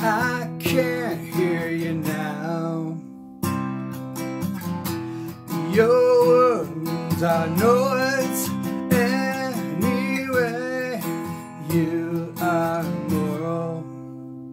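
A man singing over a strummed acoustic guitar, in phrases with short breaks between the sung lines.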